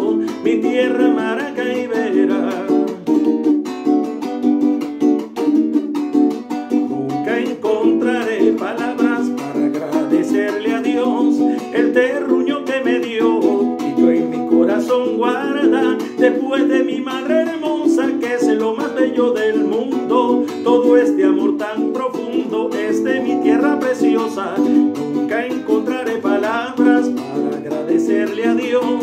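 Small acoustic string instrument strummed in a steady rhythm, chords changing as it goes.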